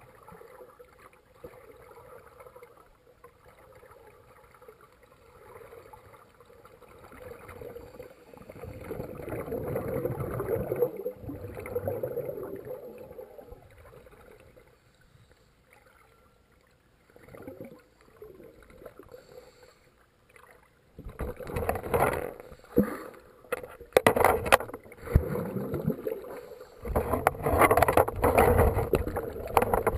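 Muffled underwater sound in a swimming pool: water rushing and bubbling, swelling about 9 to 13 seconds in, then louder uneven sloshing with sharp knocks through the last nine seconds.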